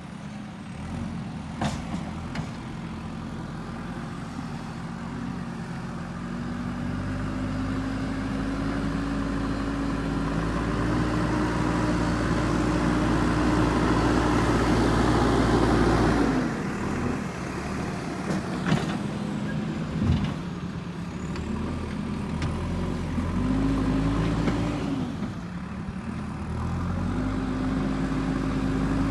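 JCB 3DX backhoe loader's diesel engine running and revving up and down as the machine works. The revs climb slowly for several seconds, drop sharply about halfway through, then rise again twice. A few sharp knocks come through, near the start and twice after the drop.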